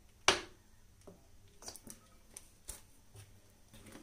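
One sharp click a moment in, then four or five fainter clicks and taps of kitchen utensils being handled on a stovetop.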